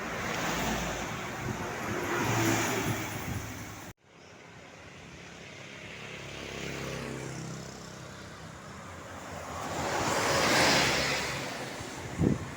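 Road vehicles passing close by one after another, each swelling and fading. The loudest pass comes about two-thirds of the way through. The sound cuts out abruptly about a third of the way in, then comes back.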